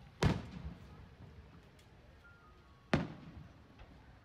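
Two aerial firework shells bursting, about two and a half seconds apart. Each is a sharp boom that trails off into a rumble.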